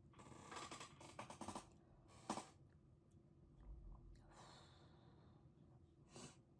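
A person breathing out hard through the mouth and sighing several times after a mouthful of painfully spicy jajangmyeon noodles. The exhales are quiet and breathy, with a sharp click about two seconds in.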